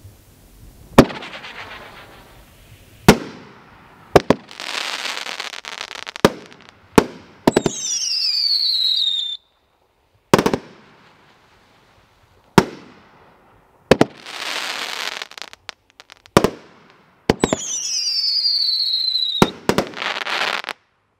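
'Pure Intensity' multi-shot fireworks cake firing: a series of sharp bangs, with stretches of dense crackling. Twice, partway through and again in the second half, a high whistle falls in pitch over about two seconds, and the barrage cuts off suddenly near the end.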